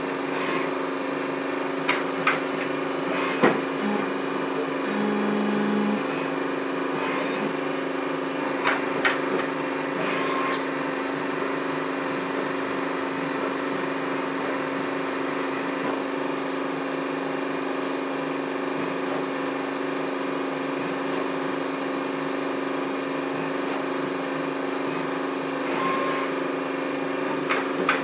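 Roperwerk Webó Turn WT400 CNC lathe running with a steady machine hum, punctuated by a few sharp clicks and knocks in the first ten seconds and again near the end.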